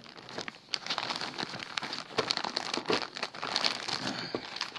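Plastic zip-lock bag crinkling as it is folded up by hand, a dense run of irregular crackles.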